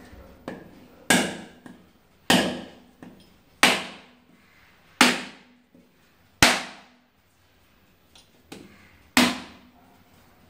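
A machete blade striking a husked coconut held in the hand to crack the shell and split it in half. There are six sharp knocks, each ringing briefly, coming about every second and a half with a longer pause before the last, plus a couple of lighter taps.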